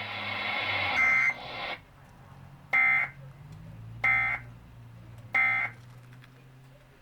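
Emergency Alert System end-of-message data code played through a TV speaker: after a hiss-like noise that stops about two seconds in, three short harsh electronic bursts sound about a second and a half apart. This marks the end of the EAS test message.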